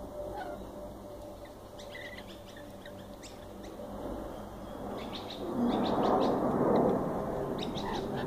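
Short, high bird chirps and squeaks, scattered and irregular. About five and a half seconds in, a broad low rushing noise swells up and becomes the loudest sound.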